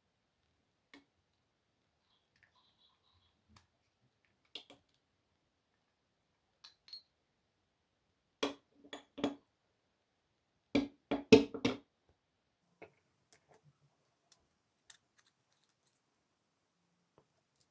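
Small hard parts and tools clicking and clinking on a workbench while an old cordless impact driver is taken apart. Scattered light clicks, with two short bunches of sharper knocks about halfway through.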